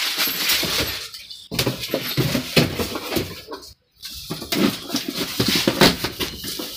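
Plastic parts bags crinkling and small metal fittings clinking as CNG kit components are unpacked and rummaged from a cardboard box, with two brief silent breaks.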